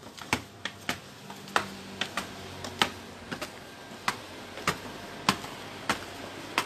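Sandalled footsteps climbing hard stone stairs: sharp, fairly even steps about every two-thirds of a second.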